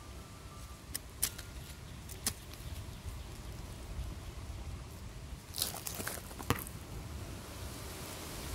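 Hands rustling and crackling through dry leaf litter, roots and loose fibres at the base of a potted tree, with a few sharp clicks and a short, louder rustle about six seconds in. A steady low rumble sits underneath.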